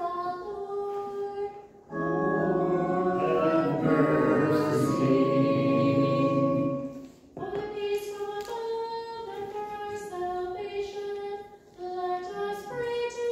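Group singing during a church service: held notes in phrases, with a louder, fuller held chord about two to seven seconds in and short breaks between phrases.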